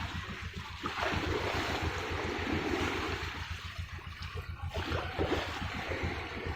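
Ocean waves breaking and washing in, a hiss that swells and eases, over a steady low rumble.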